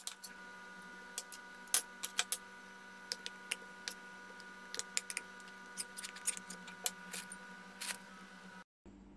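A metal spoon clicking and scraping against a metal loaf pan as a thick filling is spread over biscuits: about a dozen light, irregular clicks over a faint steady hum. The sound cuts out briefly near the end.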